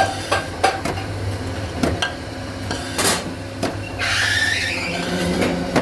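Metal workshop noise: a steady machine hum under scattered metal clinks and knocks, with a harsher hissing, grinding sound for about a second near four seconds in.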